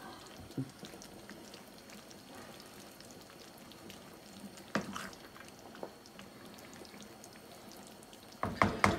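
Wooden spoon stirring and folding a thick bean stew in a large metal pan: soft wet squelching with an occasional knock of the spoon on the pan. Near the end comes a burst of several quick, louder clattering knocks.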